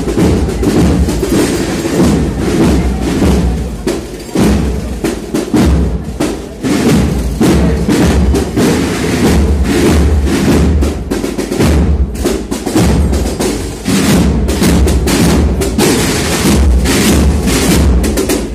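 A procession band's drums, with snare drums and a bass drum beating a steady march.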